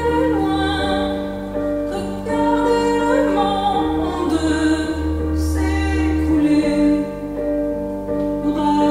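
Music with a woman singing a slow melody in long, held notes over a sustained low accompaniment.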